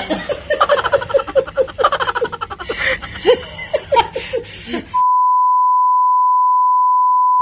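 A woman laughing in quick, repeated bursts. About five seconds in, the laughter cuts off abruptly and is replaced by a steady, high test-tone beep, the kind that accompanies TV colour bars.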